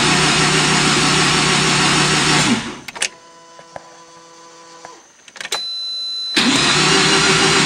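1984 Mazda RX-7's rebuilt 12A rotary engine cranking on the starter without catching, the sign that it is not getting fuel. The cranking stops about two and a half seconds in. Near the end a brief high steady tone sounds, then cranking starts again.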